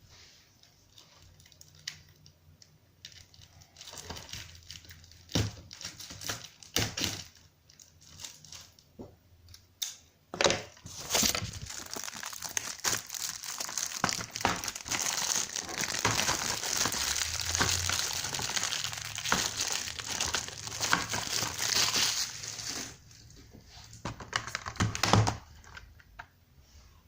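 Plastic shrink-wrap on a Blu-ray case being peeled off and crumpled: scattered clicks and knocks, then about twelve seconds of steady crinkling, then a few more knocks near the end.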